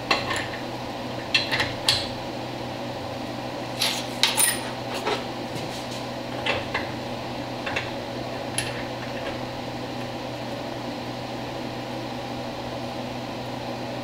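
Dana 44 differential spider gears and their washers clinking against the carrier as they are worked into place by hand: a scatter of short metallic clicks over the first nine seconds or so, then only a steady background hum.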